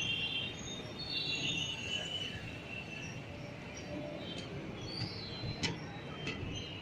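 Train moving at a crawl: a steady low rumble, with high squealing tones through the first two seconds and a few sharp clicks later on.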